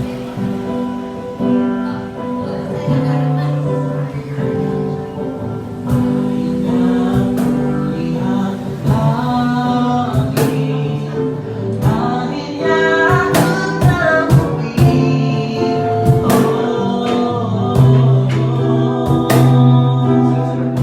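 A singer performing over acoustic guitar strumming chords, with held, wavering notes in the voice around the middle.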